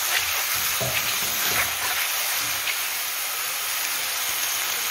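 Boiled macaroni and chopped green onion tops sizzling in hot oil in a frying pan while being stirred with a spatula, with a few short scrapes and taps in the first two seconds or so.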